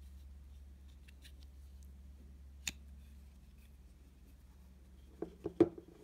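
Ganzo Firebird F720 folding knife handled and closed: a few faint ticks, then one sharp click about two and a half seconds in as the blade shuts. Near the end, three knocks as the closed knife is set down on a table, the last one the loudest.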